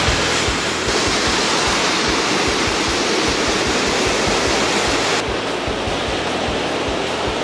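Ocean surf breaking and washing up onto a sandy beach: a loud, steady rush with irregular low rumbles. About five seconds in it drops a little and turns duller.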